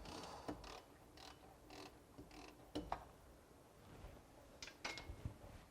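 Faint, scattered metallic clicks and taps of hand tools working on a Land Rover 90's brake caliper, about a second or so apart, the loudest about three seconds in and near the end.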